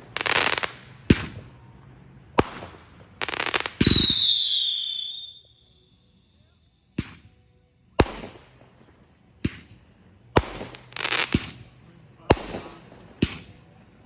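Consumer fireworks going off in quick succession: sharp bangs about once a second, several trailing into crackling. About four seconds in, a whistling firework lets out a shrill whistle that falls in pitch for about two seconds, followed by a short lull before the bangs resume.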